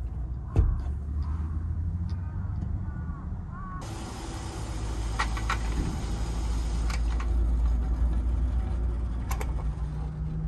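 A vehicle engine running with a steady low rumble, with a few sharp clicks and knocks on top. The background changes abruptly about four seconds in.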